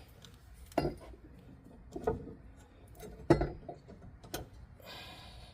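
Metal tools and parts clinking and clanking as they are handled, with four sharp knocks about a second apart, the loudest a little past three seconds in, and a brief soft rustle near the end.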